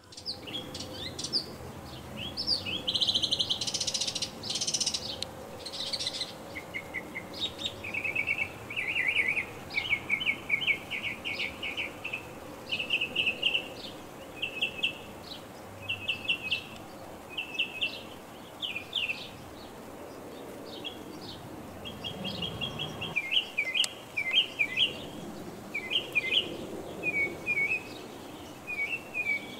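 Small songbirds chirping, in quick runs of high notes repeated every second or so, over steady low background noise.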